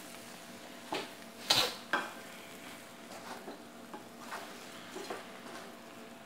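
Wooden spatula stirring chicken pieces and onion-spice masala in a deep pot, scraping and knocking against the pot with the loudest knock about a second and a half in, over a faint sizzle.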